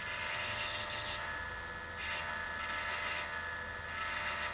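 Small handheld rotary tool running with a steady whine while it grinds and sands a cast silver ring, in several short passes of rasping contact. The metal is being dressed down to take off rough high spots.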